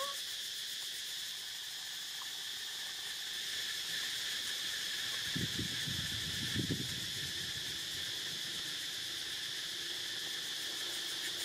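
Steady, high-pitched insect chorus droning without a break. A short chirp sounds at the very start, and a few low rustles come about five to seven seconds in.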